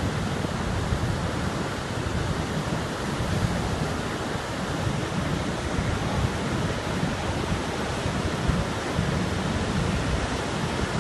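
River in high flood rushing past in a steady, loud torrent of churning water, with a deep rumble.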